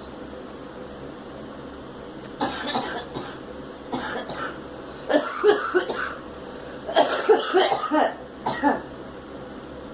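A girl coughing repeatedly in about five short fits, starting a couple of seconds in, with the loudest fit in the second half.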